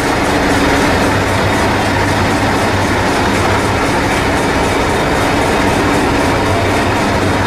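Preserved Hastings diesel-electric multiple unit 1001 idling at a platform, its diesel engine giving a steady low running drone.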